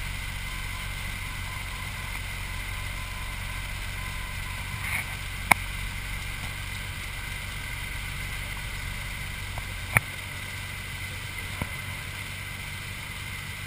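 Single-engine piston airplane's engine and propeller droning steadily, heard inside the cabin, with a steady high-pitched tone over it. Two sharp clicks stand out, about five and ten seconds in, with a fainter one shortly after.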